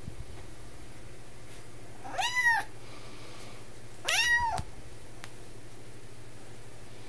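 Highlander kitten meowing twice, two short high meows about two seconds apart, each rising and then falling in pitch.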